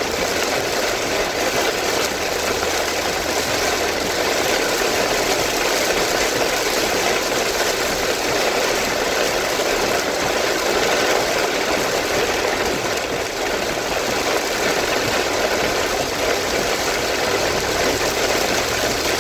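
Heavy rain pelting a moving car's roof and windshield, mixed with tyre spray on the flooded highway: a dense, steady hiss heard from inside the cabin.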